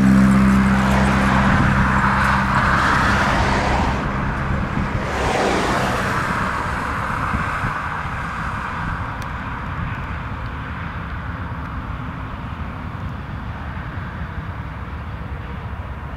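A Norfolk Southern diesel locomotive passing close, its engine running with a low hum under loud wheel-and-rail noise for the first few seconds. The locomotive then gives way to the steady rolling noise of autorack cars going by, slowly growing quieter.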